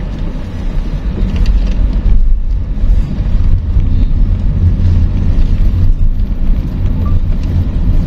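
Sedan driving on a rough road, heard from inside the cabin: a steady, loud low rumble of road and engine noise, a little louder from about two seconds in.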